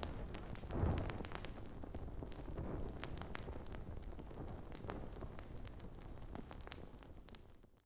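Fire crackling: a low rumble of flames with many scattered sharp pops and snaps, the loudest pop a little after a second in. It fades away toward the end.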